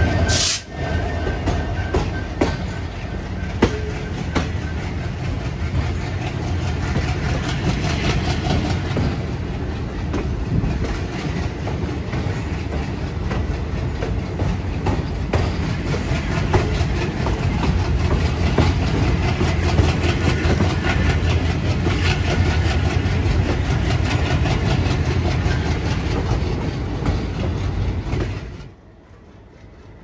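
Passenger train running behind WDG3A ALCO diesel locomotives: the steady low note of the locomotives' diesel engines under the clatter of wheels over the rails. There is a brief break with a sharp click about half a second in. The sound drops away abruptly near the end.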